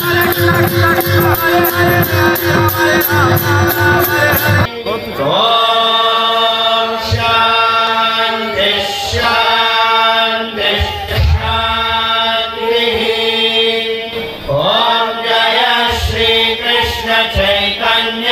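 Devotional kirtan: mridanga drums and harmonium with singing. About five seconds in, this cuts abruptly to a group of voices chanting a mantra in unison, with a few low thumps.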